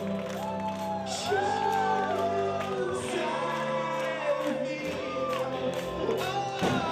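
Live electro-rock band playing, with sung vocals over sustained synthesizer tones and a steady drum beat.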